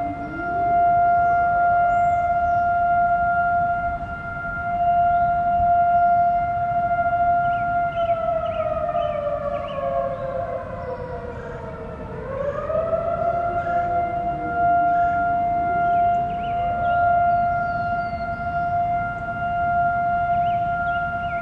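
Outdoor tornado warning sirens (STH-10s and a Model 5A) sounding together in a test. One holds a steady high wail, falls in pitch for a few seconds about eight seconds in, then winds back up to the same pitch. A second, lower siren rises at the start and again about halfway.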